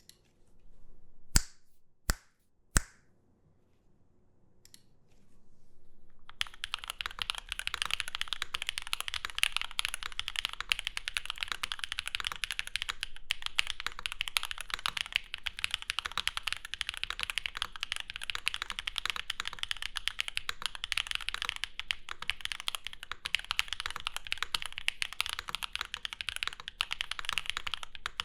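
Typing on a gasket-mount MM Studio Class1800 mechanical keyboard with a polycarbonate plate, case and plate foam, stock Sillyworks (Gateron) Type R linear switches and SW Classic Red keycaps. Three sharp single clacks come in the first few seconds, then from about six seconds in a fast, continuous run of keystrokes.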